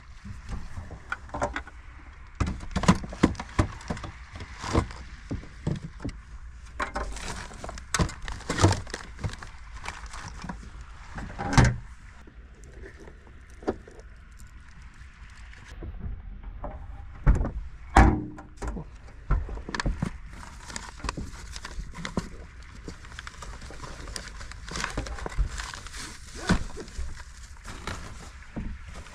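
Objects being handled and set down: irregular knocks, clicks and thuds with rustling between, the loudest knocks a little before 12 seconds in and around 17 to 18 seconds in.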